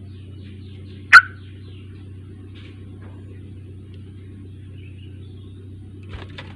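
Yellow-vented bulbul (trucuk) calling: one loud, sharp note about a second in, with faint chattering notes around it and a few more near the end, over a steady low hum.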